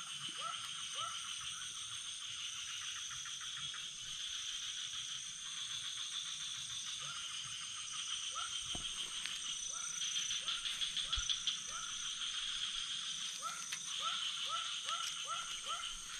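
Night chorus of frogs calling in short, rising chirps that come in quick runs, over a steady high buzz of insects.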